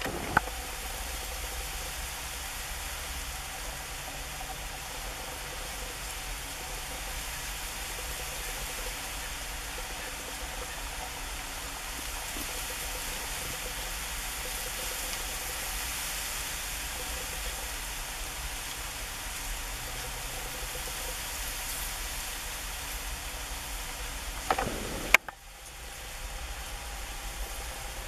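Steady outdoor background hiss with a low rumble underneath, broken by a couple of sharp clicks about 25 seconds in, after which the level dips briefly.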